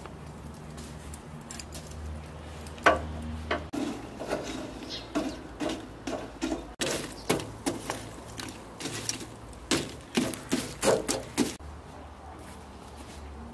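Long metal tongs poking and spreading glowing charcoal in a rusty steel mangal grill: a run of sharp clinks and knocks as charcoal lumps shift and knock together and the tongs strike the metal. It starts about three seconds in and stops near the end.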